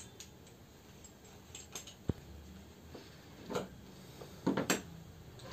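Wooden marking gauges with brass fittings being handled and set down, making a few scattered light clicks and knocks. The loudest is a knock about two seconds in, and two more come close together near the end.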